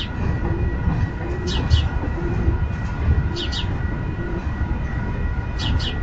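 Union Pacific intermodal freight train rolling slowly past: a steady low rumble of wheels on rail. Pairs of short high chirps come about every two seconds over it.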